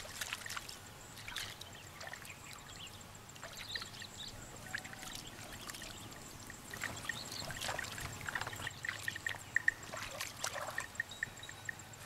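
Water splashing, trickling and dripping as hands scoop through a shallow muddy puddle, with scattered small splashes and a run of short high chirps near the end.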